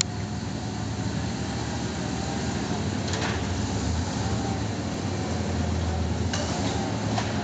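Lifted 4x4 pickup truck's engine running steadily as it moves along a dirt trail, a low rumble. There are a couple of faint knocks about three and six and a half seconds in.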